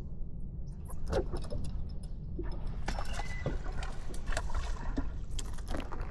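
Water splashing and sloshing against a bass boat, with many irregular knocks and clicks starting about a second in, over a steady low rumble.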